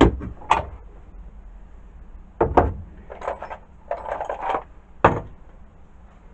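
Parts and attachments of a Black & Decker D-994 lathe attachment being handled and set down on a work surface: a few sharp knocks with bits of clattering in between.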